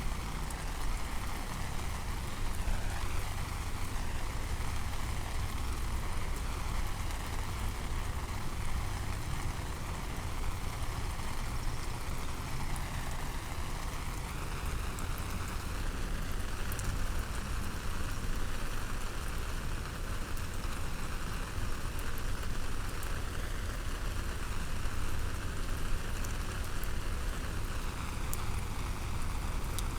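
Steady rain falling, an even continuous wash of noise, over a constant low rumble.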